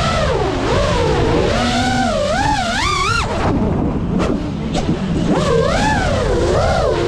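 Brushless motors and propellers of a GEPRC Mark5 five-inch FPV quadcopter whining, the pitch rising and falling with the throttle. About three seconds in the whine drops away for a couple of seconds, broken by two brief blips, then comes back with more swooping rises and falls.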